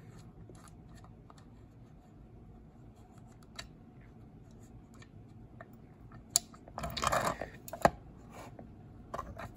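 Faint small clicks and scrapes of a die-cast metal toy street sweeper being handled. About six to eight seconds in comes a short cluster of louder clicks and a brief rattling scrape as the model is turned over.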